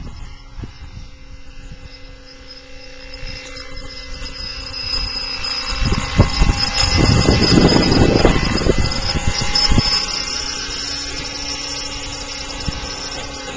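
Electric-powered RC helicopter flying in and coming down to a low hover: a steady high motor whine and rotor noise grow louder as it closes in, loudest about seven to ten seconds in as it passes close, then holding steadier.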